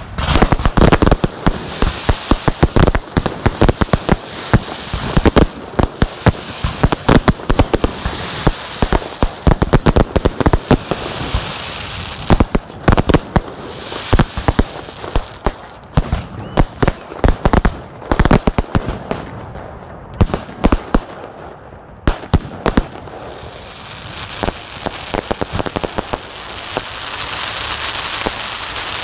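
Fireworks display: aerial shells going off in rapid, overlapping bangs over a crackling hiss. The bangs thin out after about two-thirds of the way in, and a steady hiss swells near the end.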